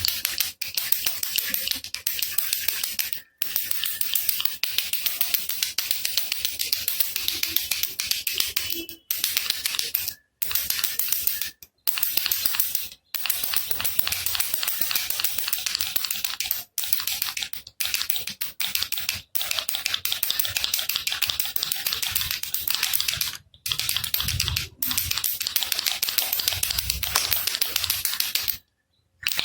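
Handheld baby rattle shaken in quick continuous runs, a dense, crisp rattling broken by about ten brief stops.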